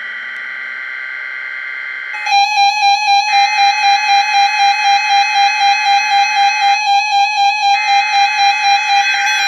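Weatheradio Canada's SAME digital alert header for a required weekly test: a harsh two-tone data screech sent in bursts, with breaks of about a second roughly two and seven seconds in. From about two seconds in, a pulsing alarm beep, three to four pulses a second, sounds over it.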